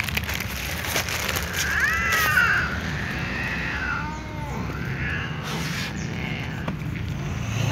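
Cat giving a short arched meow about two seconds in and a fainter, falling meow around four seconds in, over a steady low background rumble.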